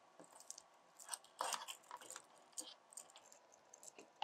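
Faint scattered clicks and a brief rustle about a second and a half in, as the pieces of a metal banding strap kit are handled and linked together.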